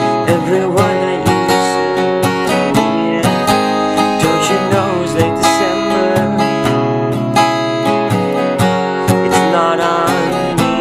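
Acoustic guitar strummed in a steady rhythm, about two strokes a second, playing an instrumental stretch of a song.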